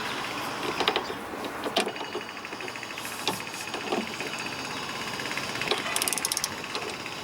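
Hand tools working the top bolt of a Porsche Boxster 986's front tuning fork arm, with grips holding the bolt against its nylock nut: scattered metal clicks and knocks, and a quick run of rapid clicks about six seconds in.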